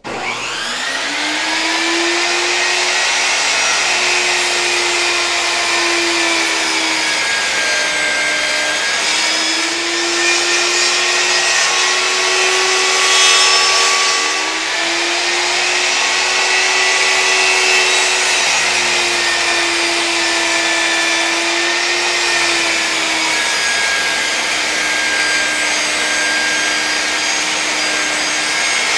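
Benchtop table saw switched on, its motor whining up to speed within about two seconds, then running steadily while it rips a small log. Its pitch sags and recovers several times as the blade takes the cut.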